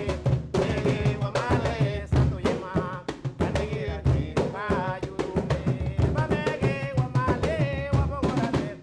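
Garifuna hand drums, primera and segundo, playing a fast hüngühüngü rhythm, with a voice singing over the beat.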